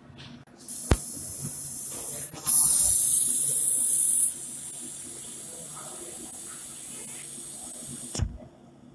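A 3 W UV laser marking machine engraving glass: a high hiss starts with a click about a second in and grows louder for a couple of seconds. It then drops to a softer hiss and stops with a click near the end.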